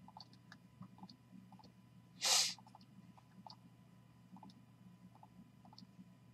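Faint, scattered clicks of a computer mouse and keyboard over a low steady hum. About two seconds in comes a single short, louder breath.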